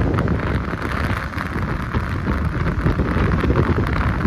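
Wind rushing over the microphone of a moving motorbike, with the engine and road noise underneath as a steady rumble.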